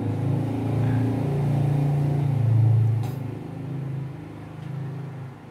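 A motor vehicle's engine passing by: a low drone that swells to its loudest about two and a half seconds in, then fades.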